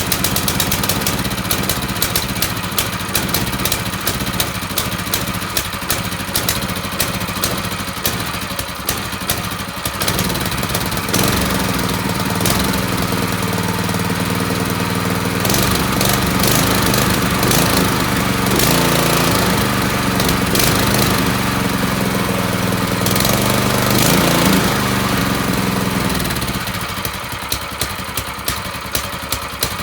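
Brand-new Predator single-cylinder four-stroke engine on a mini bike running, just after being got to start despite its starting trouble. It idles with a steady ticking beat, runs faster and louder through the middle, then settles back to idle near the end.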